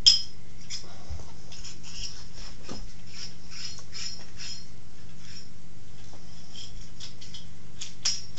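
Metal parts clinking and scraping as a steel step pulley and shaft are handled and tried against a lathe headstock, with a sharp clink just after the start and another near the end, over a steady low hum.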